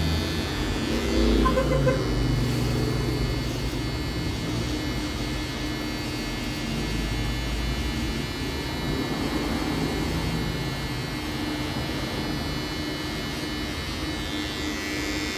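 Wahl Detailer T-blade hair trimmer running with a steady buzz as it lines up the front hairline.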